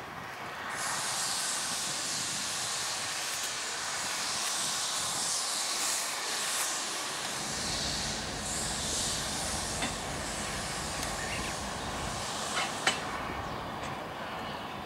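JNR Class C58 steam locomotive C58 239 hissing loudly as steam escapes, from about a second in until near the end, while it creeps forward. A low rumble joins from about halfway, and two sharp knocks come close together near the end.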